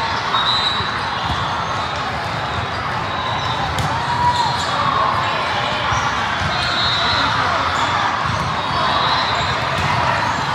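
Steady din of an indoor volleyball tournament in a large, echoing hall: many voices at once, mixed with volleyballs being struck and bouncing on the courts.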